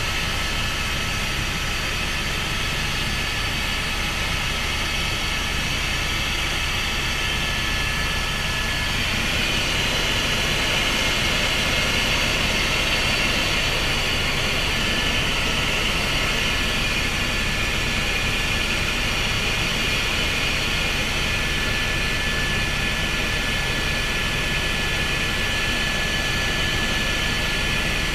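Helicopter in flight, heard from inside the cabin: the turbine engine's steady high whine over a low rotor drone, growing a little louder about nine seconds in.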